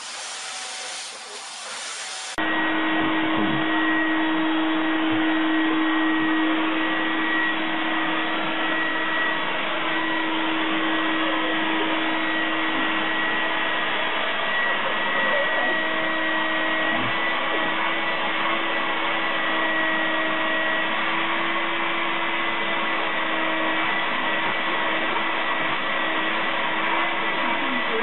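Vacuum cleaner running steadily with a constant whine, its hose brush nozzle drawn over a cat's fur. For the first two seconds a quieter hiss plays, then the louder vacuum noise cuts in suddenly.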